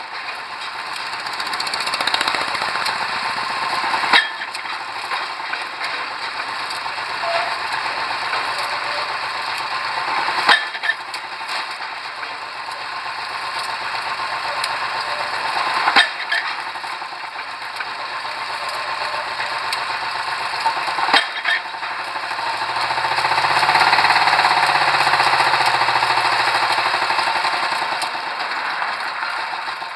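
Pile-driving rig at work: a steady, fast machine rattle with a sharp hammer strike every five to six seconds. In the second half a louder engine sound swells and fades.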